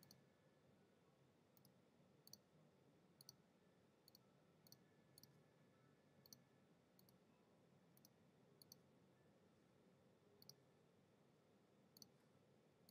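Faint single clicks of a computer mouse, about one a second with a few in quick pairs, as the points of a Bezier mask are placed one by one.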